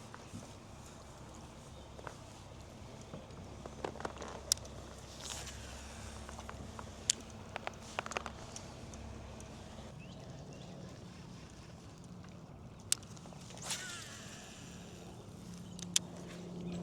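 Faint outdoor background on the water with scattered sharp clicks and knocks from fishing gear being handled in a kayak, and two brief swishing sounds, about five seconds in and near the end.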